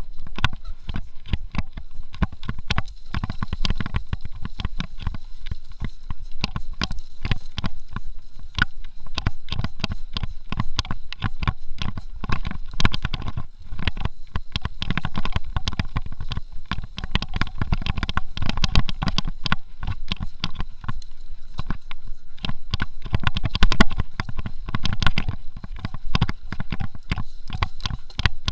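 Mountain bike clattering along a dirt singletrack: a dense run of knocks and rattles as the bike goes over roots and rocks, over a steady low rumble of tyres on dirt.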